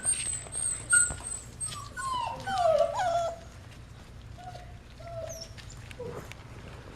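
Young Goldendoodle puppies, about four and a half weeks old, whimpering with high, wavering whines and squeaks, busiest in the first three seconds, then only a couple of short faint whines.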